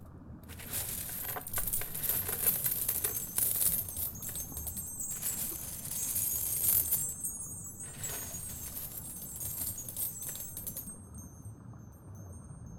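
Hands stirring through a heap of toy coins, plastic gems and bead necklaces: a dense clinking jingle with brief pauses, thinning to a faint high tinkle about eleven seconds in.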